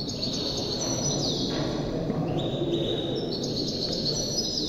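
A caged songbird singing a continuous song of long high held notes and trills, with a sliding note that falls in pitch about a second in and another near the end, over steady low background noise.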